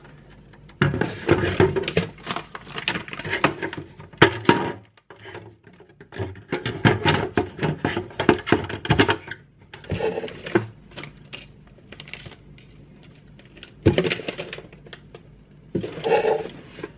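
Hard plastic model-kit body parts and a plastic parts bag being handled: irregular bursts of rustling and light clicking clatter, separated by short pauses.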